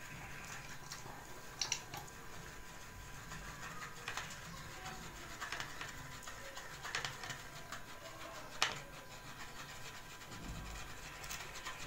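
Faint scraping and rubbing of a plastic stick worked in a funnel, pushing a thick grease-and-motor-oil mixture through the funnel's mesh strainer, with a few short clicks.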